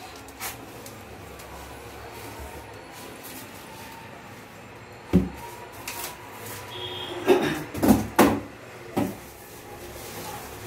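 Packaging being handled as a loudspeaker is unpacked: styrofoam end cap and plastic bag knocked and rubbed. A single knock about five seconds in, a cluster of louder knocks and rustling around seven to eight seconds, and one more knock shortly after.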